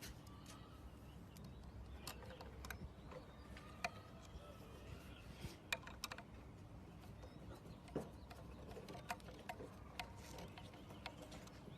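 Faint, scattered clicks and taps of small hard parts being handled during a smart deadbolt installation, a few sharper ticks standing out among them.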